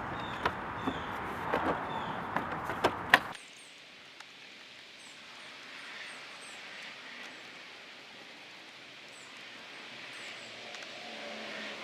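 Several sharp clicks and knocks of hand work on the car's engine-bay parts over a steady background, which cuts off abruptly about three seconds in; after that a quieter outdoor background with faint, short, high bird chirps.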